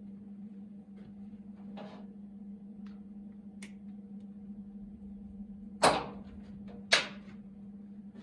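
Two sharp knocks about a second apart, with a short ring after each, over a steady low hum; there are faint ticks in between.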